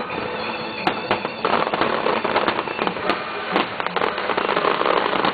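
Fireworks going off: a rapid series of sharp bangs and crackling, growing denser from about a second and a half in.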